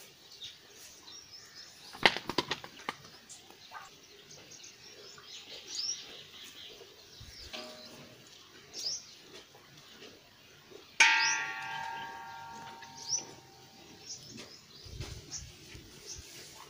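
Small birds chirp briefly several times, with a quick clatter of knocks about two seconds in. About eleven seconds in, a loud sudden metallic clang rings on and fades over about three seconds.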